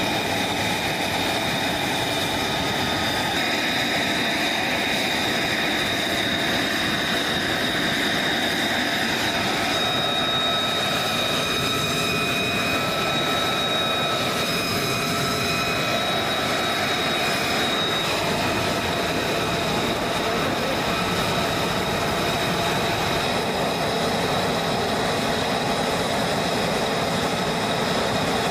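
F-35B Lightning II's jet engine running on the ground: a steady high whine over a continuous rush of noise.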